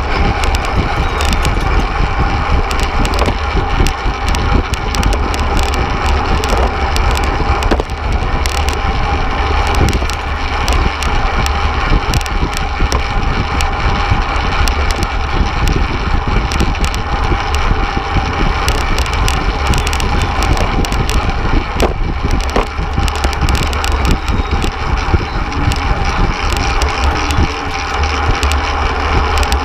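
Wind buffeting the microphone of an action camera riding on a fixed-gear track bike at racing speed, a steady heavy rumble with tyre and road noise beneath it.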